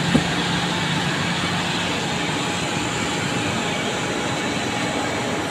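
Steady, even noise of running factory machinery with a faint hum, and a brief knock just after the start.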